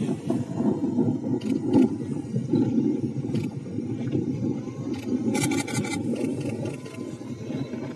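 Motorboat engine running steadily, with wind and water noise, heard from on board.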